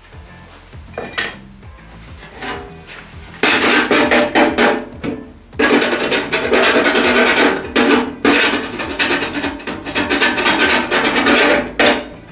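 Rapid scraping and rasping on the rusty sheet steel of a jeep fender: rust being worked off from under an old patch. A few light knocks and clicks come first, then two long stretches of dense strokes with a brief break between them.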